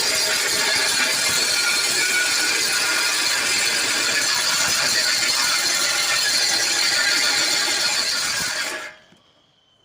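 Electric arc welding on sheet metal: the arc crackles loudly and steadily, then cuts off suddenly near the end as the arc is broken.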